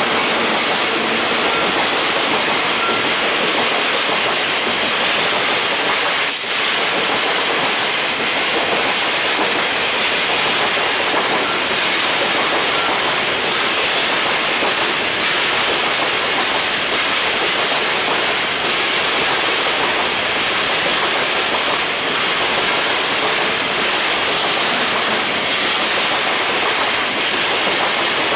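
Container wagons of a freight train rolling past, a steady loud noise of steel wheels running on the rails, with one sharp click about six seconds in.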